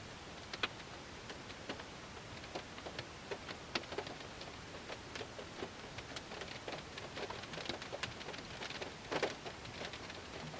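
Rain falling on a car, many separate drops tapping at an uneven pace over a steady hiss of rainfall, with a quick cluster of louder hits about nine seconds in.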